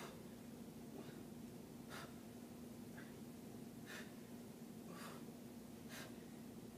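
Faint, short breaths, about one a second with every other one stronger, from a woman working through seated dumbbell shoulder presses, over a steady low hum.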